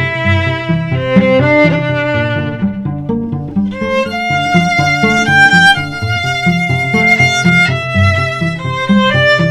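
Violin and cello duet playing a pop medley arrangement. The violin carries the melody in held and moving notes over a cello line of short, quickly changing low notes.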